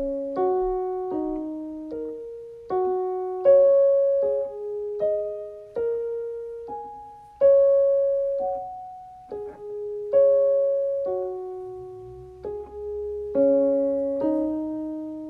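Background music: a slow, gentle piano melody, notes struck about once a second and left to fade.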